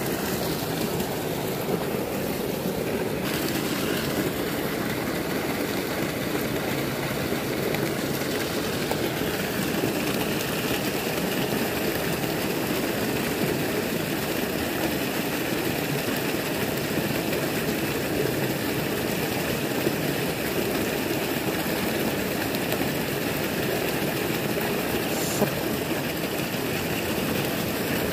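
Water pouring steadily over a small concrete weir and churning into the pool below.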